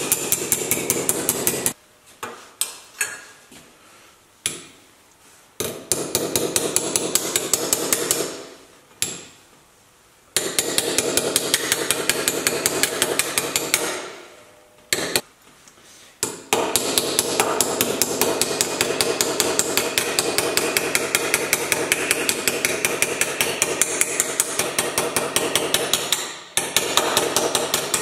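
Ball-peen hammer rapidly striking a thin sheet-metal repair panel clamped in a bench vise, shaping it over the jaws. Quick runs of ringing metallic blows, several a second, broken by short pauses.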